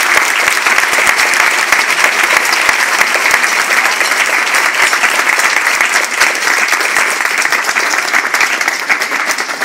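Audience applauding, loud and close, with many hands clapping at once; the clapping thins a little near the end.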